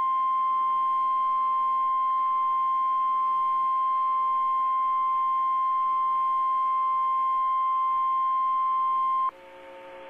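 NOAA Weather Radio's 1050 Hz warning alarm tone: a single steady, loud beep that holds unchanged and cuts off suddenly about nine seconds in, leaving a faint hum from the radio. The tone signals that a warning broadcast follows, here a severe thunderstorm warning.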